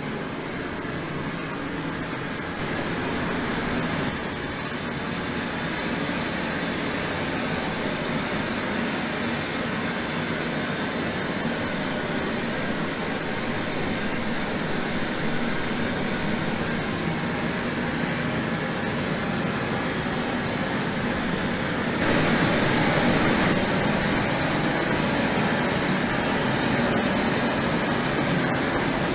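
Steady rushing test noise from a dodecahedron loudspeaker driven to around 100 decibels for a sound-insulation test of a movable acoustic partition. It steps up slightly in loudness about four seconds in and again about 22 seconds in.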